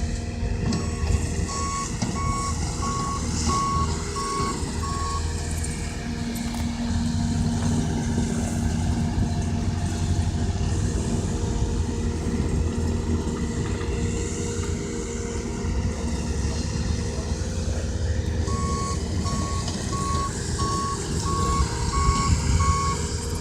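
Heavy vehicle engine running steadily, with a reversing alarm beeping in two runs of evenly spaced beeps: one in the first five seconds and another near the end.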